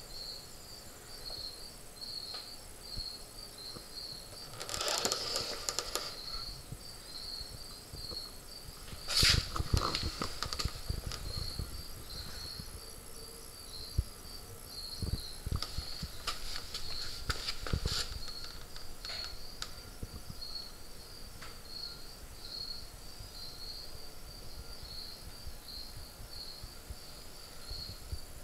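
Crickets chirping steadily in an even, high-pitched pulse, with a few brief rustles and knocks, the loudest about nine seconds in.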